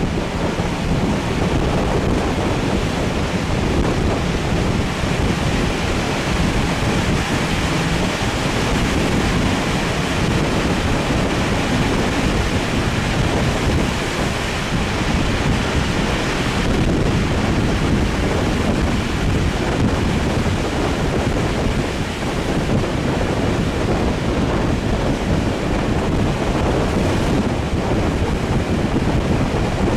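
Steady wind rushing over the microphone at the open window of a moving train, mixed with the train's running rumble.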